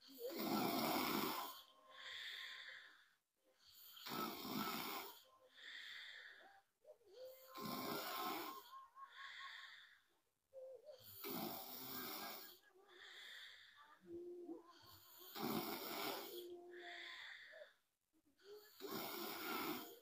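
A young woman snoring in her sleep: a loud snore about every three and a half seconds, six in all, each followed by a softer breath.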